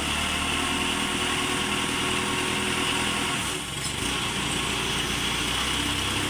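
Heavy construction machine's diesel engine running steadily under load, with a brief drop in level about three and a half seconds in.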